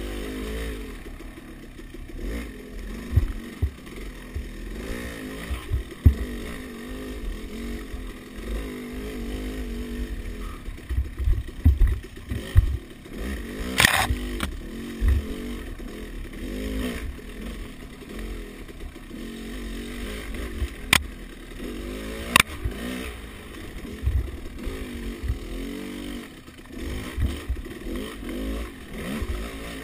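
Dirt bike engine revving up and down as it is ridden over rough ground, with low thumps and clatter from the bike and a few sharp knocks, the loudest about fourteen seconds in.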